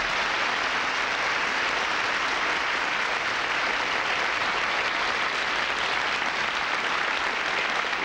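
Studio audience applauding, steady and sustained.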